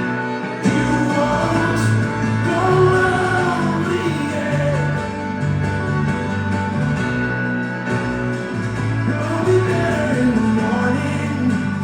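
Live concert music: a band playing sustained chords, with a sung vocal line over it.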